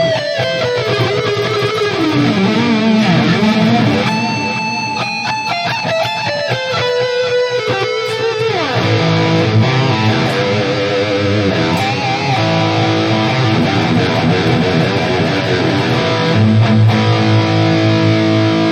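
Distorted electric guitar played through a modeling multi-effects unit's "pure" digital delay. It plays a bending single-note lead line for about the first eight seconds, slides down, then moves to sustained chords.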